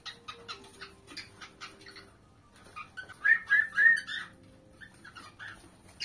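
A flock of cockatiels chirping in quick, short calls. About three seconds in comes a louder run of rising-and-falling chirps, then a few softer calls.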